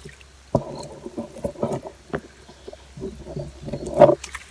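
Footsteps sloshing through a shallow stream, with irregular splashes and knocks; the loudest splash comes about four seconds in.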